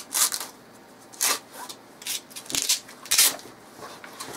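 Handling noise from a black nylon soft rifle case as a rifle is worked inside it: fabric rustling with several short, sharp scuffs.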